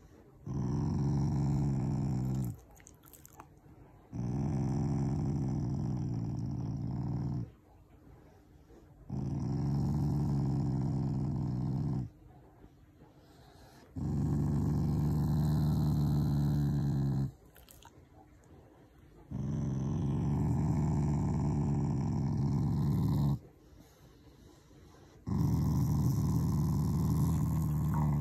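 Black Shiba Inu growling in a series of long, low growls, six in a row, each lasting about two to four seconds with short breaks between. It is affectionate growling, not anger, as the owners describe it.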